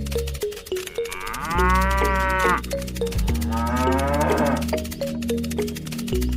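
Two drawn-out cow moos, the first about a second in and the second near the middle, over background music with a steady repeating beat.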